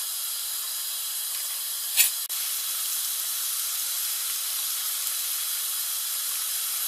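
Butter and chopped shallot sizzling in a hot frying pan, a steady hiss as the butter melts and foams, with a short clack about two seconds in as a spatula stirs.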